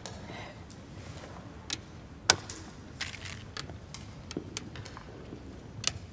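Go stones clicking on a wooden board: a handful of sharp single clicks spaced irregularly, the loudest a little over two seconds in.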